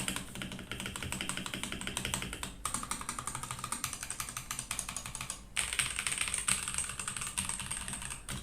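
Fast typing on a Ganss GS3087T mechanical keyboard with Ganss switches: a dense run of key clicks. The sound changes character twice, at about a third and two thirds of the way through, after a brief pause each time.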